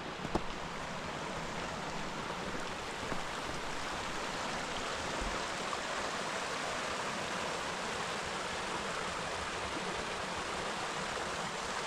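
Creek water flowing, a steady rushing noise.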